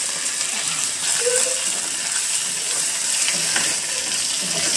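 Tempering of garlic, dried red chillies, cumin and curry leaves sizzling steadily in hot oil. There are a few light clicks near the end as a steel ladle stirs it.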